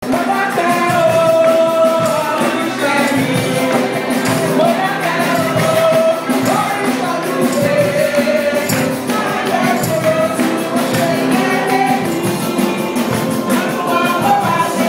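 Music with singing over rhythmic percussion.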